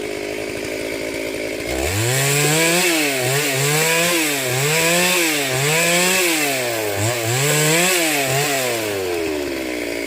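Two-stroke chainsaw idling, then revved hard about two seconds in, its pitch rising and dipping roughly once a second for several seconds before dropping back to idle near the end.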